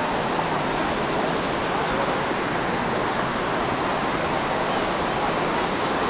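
Ocean surf washing onto a sandy beach, a steady even rush of noise.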